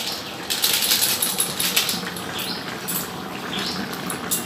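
Metal spatula scraping and clinking in a steel kadai as a thick chicken curry is stirred, with the gravy bubbling on the heat, in a series of short scraping strokes.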